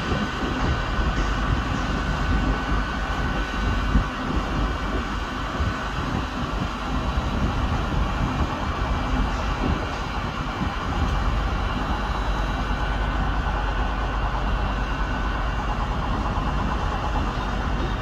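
Steady low rumble of a train's engine idling at a station platform, with a faint steady whine in the first few seconds.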